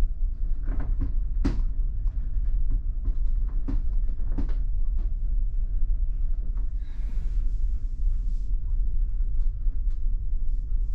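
Steady low rumble of the ferry's engines and hull vibration heard inside a cabin, with a few light knocks in the first half. About seven seconds in there is a brief rustling hiss as the door of a small cabin refrigerator is pulled open.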